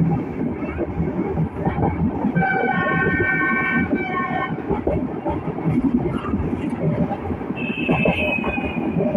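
Metre-gauge passenger train running, the carriage and wheels rattling and rumbling on the track. About two seconds in, the locomotive horn sounds for about two seconds with a brief break, and near the end a short high squeal, slightly falling, cuts through.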